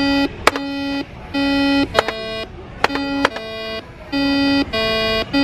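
Simon electronic memory game sounding a sequence of electronic beep tones, about half a second each and close to two a second, switching between a low note and higher notes as the colour pads are played, with short clicks between the tones.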